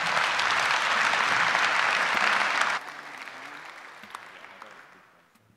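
Audience applauding. The clapping stops abruptly about three seconds in, and what remains dies away to near quiet.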